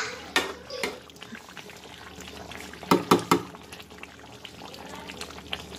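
Chicken and potato curry bubbling in a karahi as its water cooks down, with steady liquid bubbling and popping. A quick cluster of knocks stands out about three seconds in.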